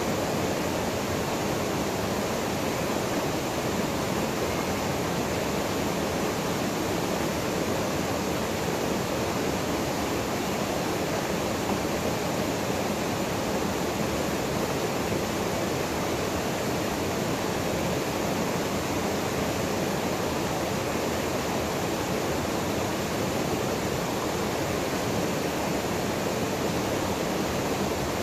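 A waterfall pouring into a plunge pool: a steady, unbroken rush of falling water.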